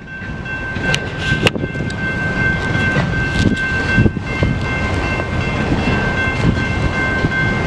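General Signals type 2 railroad crossing bell ringing continuously, its ring held as a steady high tone. Beneath it is the low rumble of a freight train with a few sharp metallic knocks in the first few seconds.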